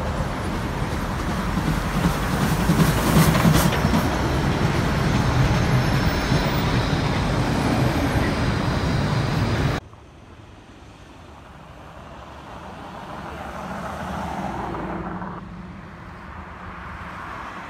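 Loud, dense vehicle rumble that cuts off abruptly about ten seconds in, then quieter road traffic whose engine noise swells to a peak a few seconds later and fades away.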